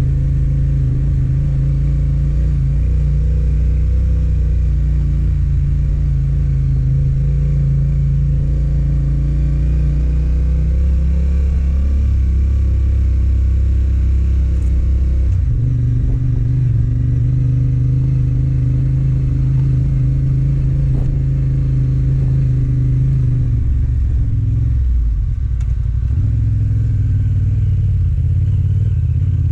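Yamaha Ténéré 700's 689 cc parallel-twin engine running under way at a steady throttle. The engine note steps up in pitch about halfway through, then drops briefly and picks up again near the end.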